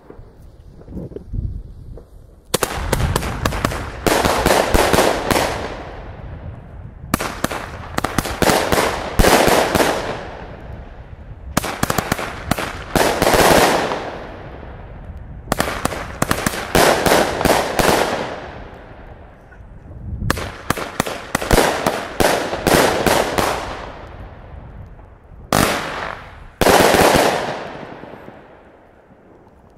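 A 20 mm 36-shot 'Air Raid' fireworks cake firing in about six volleys. Each volley is a quick run of launch shots followed by bursts that fade out, with short pauses between volleys.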